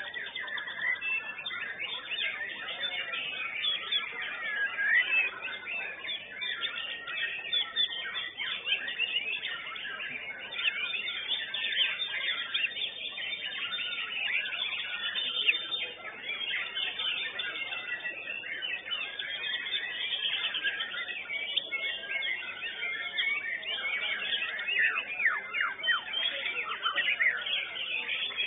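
White-rumped shama (murai batu) singing without a break in full contest song: a dense stream of rapid, varied high whistles and chattering notes.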